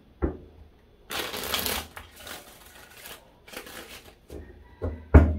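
A deck of tarot cards being shuffled by hand: a dense burst of card noise about a second in, then several shorter rustles, and a sharp thump near the end.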